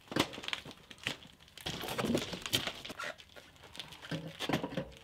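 Clicks, knocks and rustling of minibike parts being handled while the steering bolt is fitted, busiest about two seconds in.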